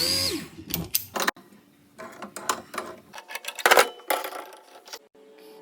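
A power drill spinning down, its pitch falling, followed by scattered clicks and knocks of tools or parts being handled, the loudest a little before four seconds in.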